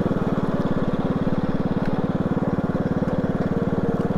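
Motorcycle engine running steadily while the bike is ridden along a dirt track: an even, rapid throb of firing pulses that holds the same speed throughout.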